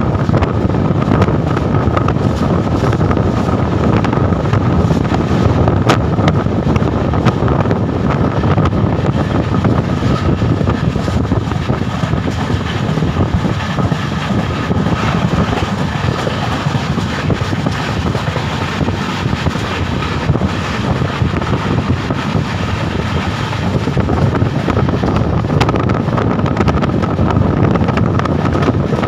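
Train running at speed: a steady, loud, low noise of the moving carriage, mixed with wind buffeting the microphone at the open window. A few faint clicks sound now and then.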